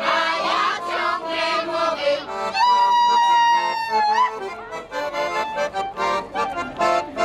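Traditional Polish folk song: women's voices singing together with accordion accompaniment. A long held note comes about three seconds in, after which the accordion carries on with evenly paced repeated notes.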